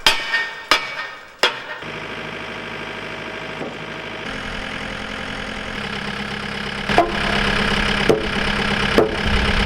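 An engine running steadily and growing a little louder. It is broken by sharp knocks: three in the first second and a half, then a few more near the end.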